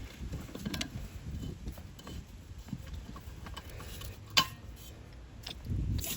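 Scattered metal clinks and knocks from tools working on a steel gas cylinder as it is taken apart, with one sharper clink about four seconds in and a heavier low knocking near the end.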